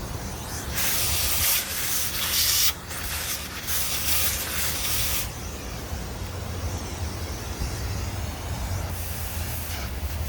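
Compressed air blown through a vacuum's clogged post-motor filter in several hissing bursts of a second or two each, clearing carbon dust out of it.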